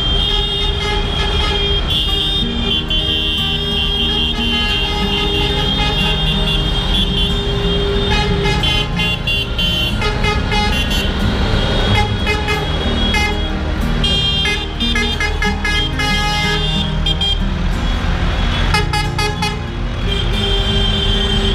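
A procession of tractors driving slowly past close by, their diesel engines running, with horns tooting one after another throughout.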